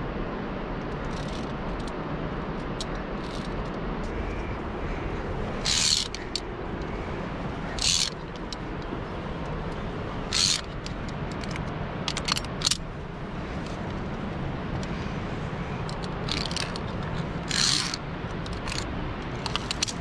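Climbing gear and clothing scraping during a via ferrata climb: about seven short, loud rasps as the climber moves along the steel cable, over a steady rushing noise.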